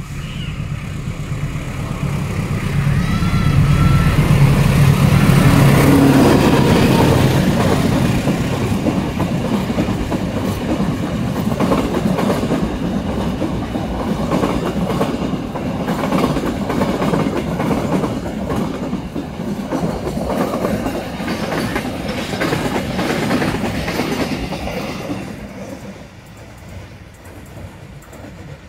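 Empty cement freight train passing at close range: the locomotive's engine drone is loudest in the first several seconds, then the long string of empty cement wagons clatters steadily over the rail joints, fading away near the end.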